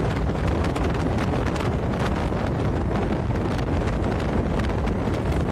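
Strong wind buffeting the phone's microphone: a steady low rumble with frequent crackles.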